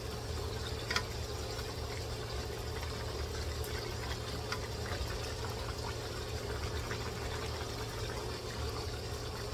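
Food cooking in a pan on the stove: a steady hiss with scattered small pops, over a low steady hum.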